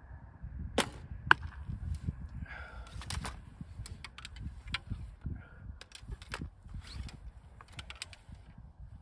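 A 25-pound Geologic Club 500 recurve bow is shot: a sharp snap of the released bowstring, then a louder sharp crack about half a second later. After that come scattered light clicks and rustles as the next arrow is handled and nocked, with wind rumbling on the microphone.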